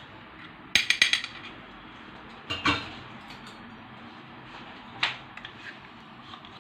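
A spoon clinking against a dish: a quick run of ringing clinks about a second in, then two single knocks, as a large spoonful of yogurt is added to the marinade.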